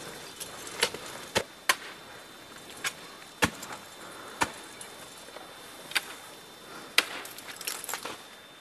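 Ice axes striking into steep ice: about nine sharp chopping strikes at irregular spacing, most a second or so apart, with a small flurry of lighter taps near the end.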